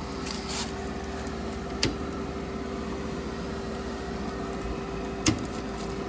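Sharp click near the end, with a smaller one about two seconds in, from a 30-amp circuit breaker's handle being worked to reset the tripped breaker feeding an outdoor AC condensing unit. A steady hum with a faint steady tone runs underneath.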